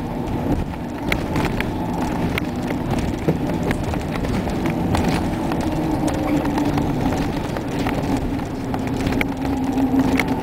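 Interior sound of a 2012 Nova Bus LFS city bus on the move: its Cummins ISL9 diesel and driveline give a steady low drone with a tone that slowly rises and then levels off, over road noise. Frequent light clicks and rattles come from the bus's interior.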